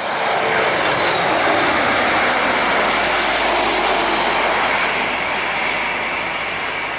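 Airbus A321-211's CFM56 turbofan engines roaring loudly as the jet passes close by. High whining tones fall in pitch over the first couple of seconds.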